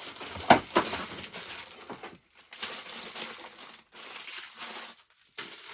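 Rummaging through a box of small parts and plastic bags: rustling and crinkling with a few sharp knocks and clatters, the loudest about half a second in.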